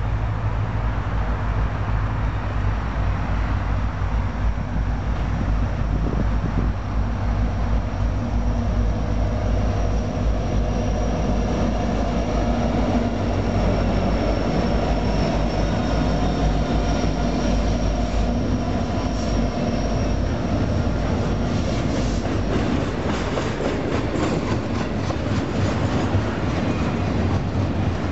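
A Union Pacific freight train passing close by: the diesel locomotives run with a steady heavy rumble as they approach and go by, with a thin high wheel squeal as they pass. From about two-thirds of the way through, the double-stack container cars roll past with rapid clicking of wheels over the rail joints.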